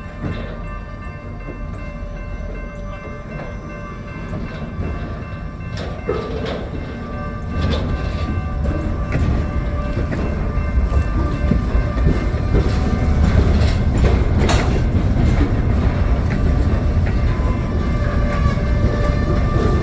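EMD GP40-2 diesel locomotive and its freight cars moving slowly past, the engine's low rumble growing louder and closer from about a third of the way in. Steady tones ring over it and sharp metallic clanks come from the wheels and couplers.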